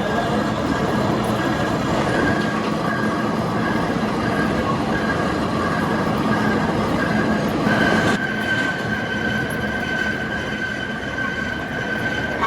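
Metal lathe running and cutting a steel workpiece, with a steady machining noise and a high whine from the cut that comes and goes, then holds steady from about eight seconds in.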